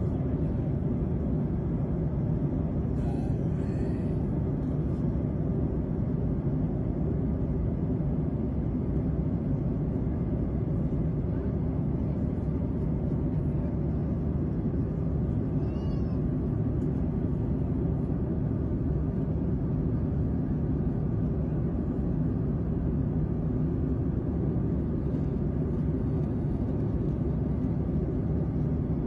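Steady low rumble of a rocket launch heard from a distance, unchanging in level throughout. A faint brief chirp occurs about sixteen seconds in.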